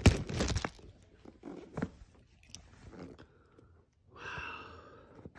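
Cardboard soap box handled close to the phone's microphone: a burst of handling noise at the start, then scattered taps and rustles, with a longer rustle about four seconds in.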